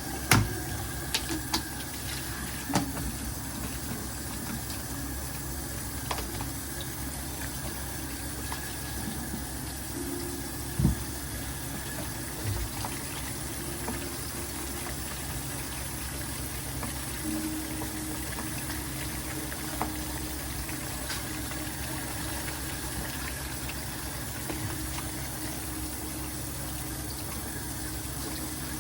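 Water running steadily from a tap, with a few light knocks of kitchenware, the loudest about 11 seconds in.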